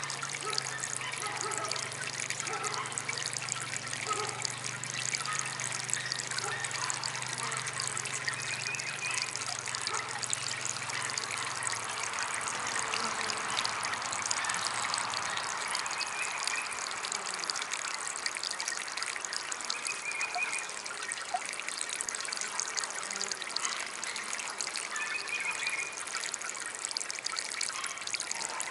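Small DIY garden water fountain trickling steadily. A low hum underneath stops about twelve seconds in.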